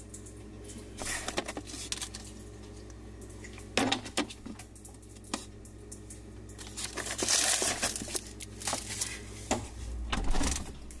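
Food and containers being handled in a refrigerator: packaging crinkling and rustling, with scattered clicks and knocks of containers, over a steady low hum. The rustling is loudest about seven seconds in.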